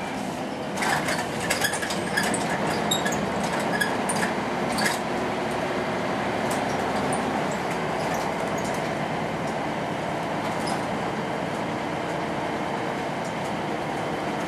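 Volvo B10M bus under way, heard from inside the passenger cabin: the mid-mounted six-cylinder diesel engine running with steady road noise. A burst of clicking, clattering rattles comes about one to five seconds in.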